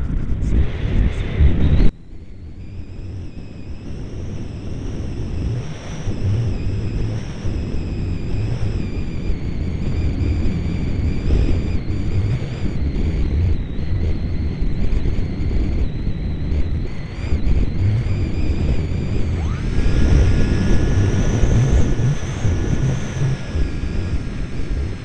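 Radio-controlled model airplane's motor and propeller whining steadily, heard from an onboard camera, under heavy wind rumble on the microphone. The rumble drops suddenly about two seconds in, and near the end a second tone slides up and holds.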